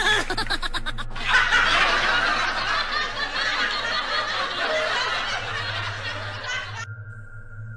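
Shrill, cackling ghost-style laughter: a rapid run of short 'hi-hi-hi' pulses, then a long high-pitched drawn-out laugh that cuts off suddenly near the end, leaving a faint steady tone.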